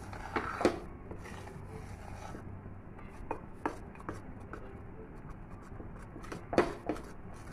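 A spatula stirring and scraping thick, sticky flour dough around a steel pan, with a few sharp knocks of the spatula against the pan, the loudest near the end.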